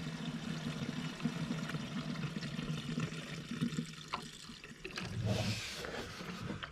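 Fuel pouring steadily from a vented fuel can into a Kubota KX057 mini excavator's fuel tank, the tank nearly full, with a brief hiss about five seconds in.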